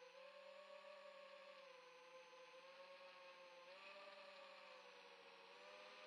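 Faint whine of a 4-inch FPV quadcopter's brushless motors and Gemfan Windancer 4032 propellers in flight, its pitch wavering with the throttle and stepping up about four seconds in.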